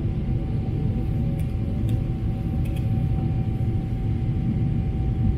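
Steady cabin noise of a Japan Airlines jet airliner on descent: a deep engine and airflow rumble with a steady hum over it. A few faint clicks come about one and a half and two and a half seconds in.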